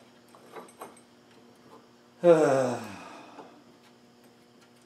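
A man's wordless sigh, one falling vocal sound about two seconds in, with a few faint clicks of metal hand tools being handled before it.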